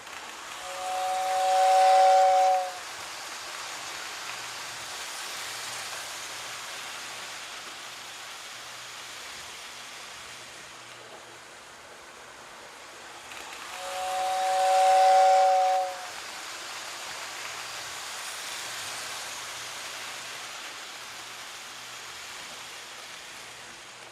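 Kids' toy train blowing a two-note whistle twice, each blast about two seconds long, swelling and then cutting off sharply, about thirteen seconds apart. A steady hiss runs between the blasts.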